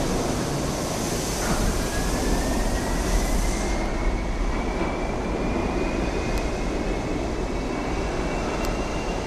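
R68 subway train running out of the station into the tunnel with a steady rumble of wheels on rail. A loud hiss from the last cars passing close fades out about four seconds in, and a thin whine rises slowly in pitch from about a second and a half in.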